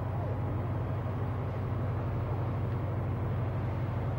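Fire engine running steadily with a low, unbroken drone, its pump driving the water monitor that is spraying.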